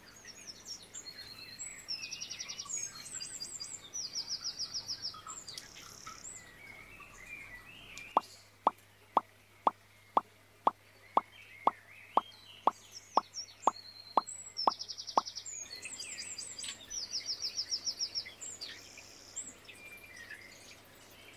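A steady run of about fifteen water-drop plops, roughly two a second, set over recorded bird song of short chirping trills. The trills come in bursts at the start and again after the plops end.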